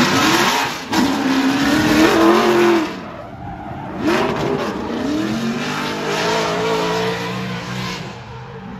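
Ford Mustang drift car sliding sideways, its engine revving up and down while the rear tyres screech and smoke. The sound changes abruptly a few times as short shots are cut together.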